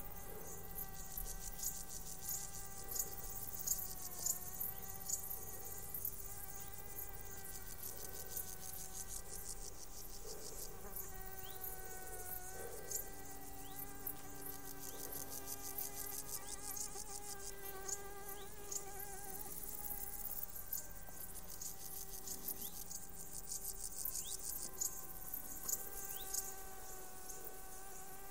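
Flies and bees buzzing around a flowering onion head, a steady hum of several slightly wavering tones. Over it, meadow insects chirr in fast, high-pitched pulses from the surrounding grass.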